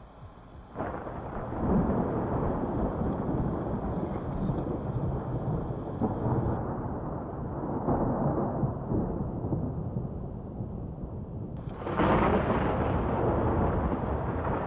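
Thunder from a nearby thunderstorm: a sudden clap about a second in that rolls on as a long, swelling rumble, then a second crack about twelve seconds in that rumbles on again.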